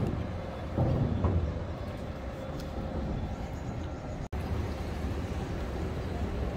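Steady low engine rumble with a faint voice briefly about a second in; the sound drops out for an instant a little after four seconds.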